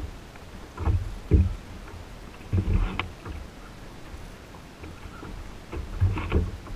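Water slapping and sloshing against the Hobie Outback kayak's plastic hull in a few short, uneven splashes, over faint wind.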